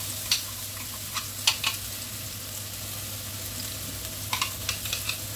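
Coarsely blended shallot, garlic and bird's-eye chilli paste sizzling as it is scraped into hot oil in a non-stick pan, a steady frying hiss with scattered sharp clicks.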